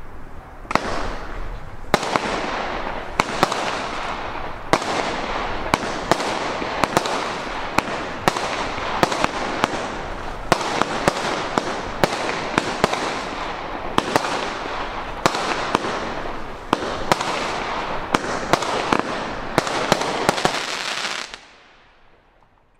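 19-shot Solar firework cake from Evolution Fireworks firing its shots in a quick series for about twenty seconds: sharp bangs roughly once a second over a constant crackling hiss, stopping near the end.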